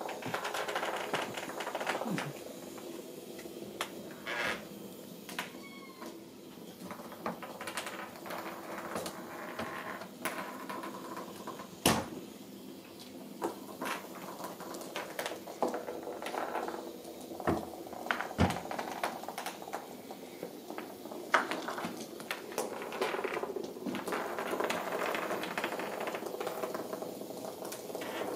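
Ragdoll kittens playing: scattered taps, clicks and knocks of paws and small toys on tile and on plastic ring toys, with a few short kitten meows. The sharpest knocks come about twelve and eighteen seconds in.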